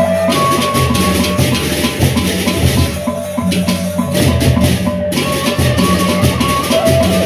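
Sasak gendang beleq gamelan ensemble playing: many pairs of hand cymbals clash in a fast, dense rhythm over pulsing large drums, with a few held pitched notes above.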